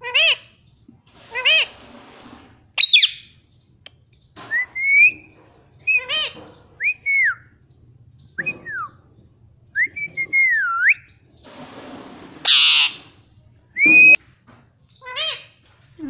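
Indian ringneck parakeet calling in short separate bursts: squawks, and whistles that glide up and down in pitch. A harsh screech comes about twelve seconds in.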